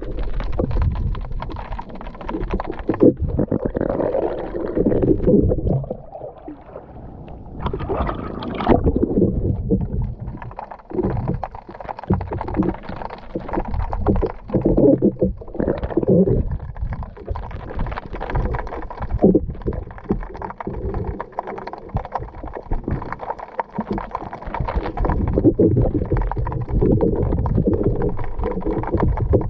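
Muffled water sloshing and rumbling against an underwater camera held just below a choppy sea surface, swelling and fading irregularly.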